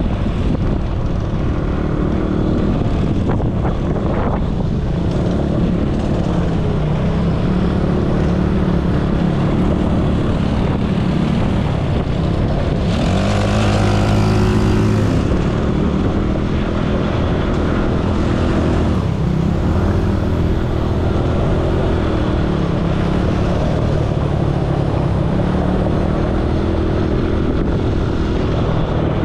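ATV engine running steadily as it is ridden, its pitch drifting up and down with speed, and getting louder for a couple of seconds a little after halfway.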